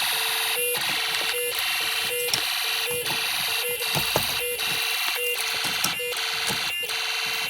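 Homemade Snap Circuits fire alarm sounding during a system test: an electronic oscillator alarm tone pulsing evenly, a little more than once a second.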